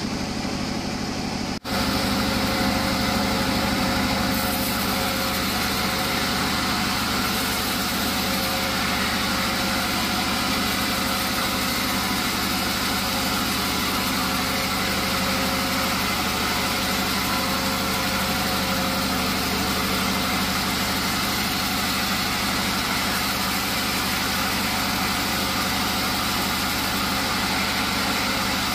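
Large vertical band sawmill running steadily, its motor and band blade making a continuous mechanical noise, with a brief dropout about a second and a half in.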